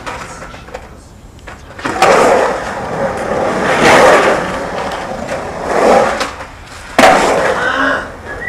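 Skateboard wheels rolling on the bare concrete of an empty swimming pool, the rolling noise swelling and fading several times as the rider carves the walls, with a sharp bang about seven seconds in.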